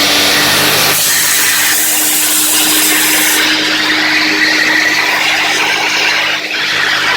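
Thomas twin TT Aquafilter washing vacuum cleaner running: a loud, steady motor hum with a rush of air. The high hiss of the air drops about three and a half seconds in, and the sound dips briefly near the end.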